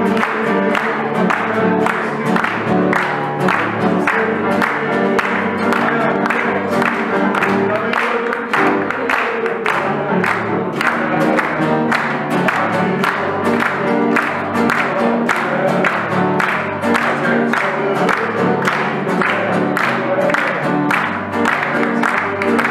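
Live upright piano and acoustic guitar playing an upbeat tune, with the audience clapping along on the beat.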